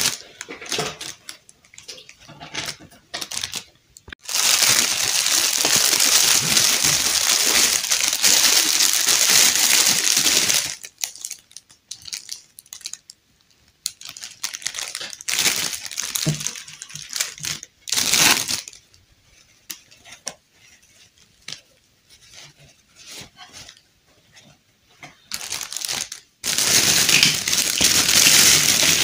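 Clear plastic bag crinkling and rustling as it is handled, in long loud spells with quieter scattered rustles and small clicks between them.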